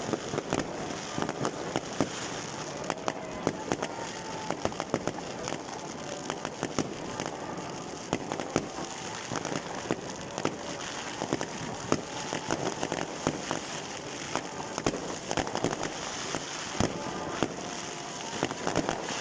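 Fireworks and firecrackers going off without pause: frequent sharp bangs and crackles at irregular intervals over a constant din of further explosions.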